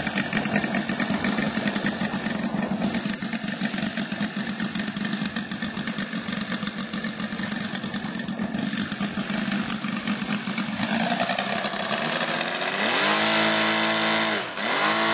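Saito 75cc three-cylinder radial four-stroke engine on a large model aircraft running at low throttle with a rough, uneven beat, then opened up about eleven seconds in to a steady high-revving run. Near the end the revs drop sharply and pick straight back up.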